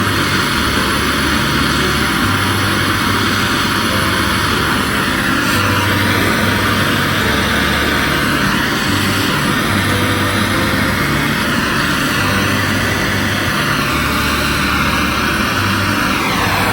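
Handheld gas soldering torch burning with a steady hiss, heating a copper pipe fitting so the solder can be drawn into the joint. It shuts off right at the end.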